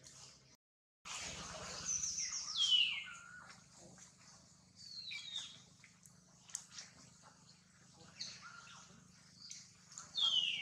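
Birds chirping in the tree canopy: short high calls that slide down in pitch, repeated several times, with a brief dropout to silence just under a second in.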